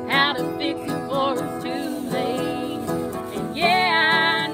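Two women singing to an acoustic guitar strummed beneath them, with a loud held note with vibrato near the end.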